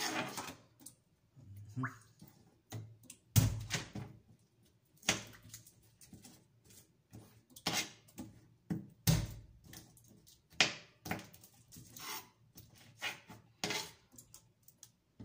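Kitchen knife chopping garlic cloves on a cutting board: an irregular run of sharp knocks, with a few heavier thuds among them.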